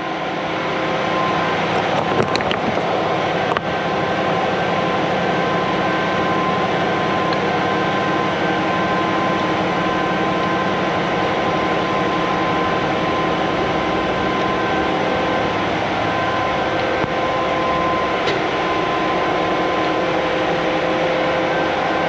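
Steady machine drone with several fixed steady tones in it, running unchanged throughout, with a few faint clicks on top.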